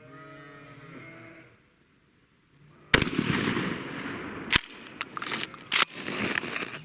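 A single shotgun blast from a Remington 870 pump-action about three seconds in, fading away over a second or so, followed by several sharp clicks.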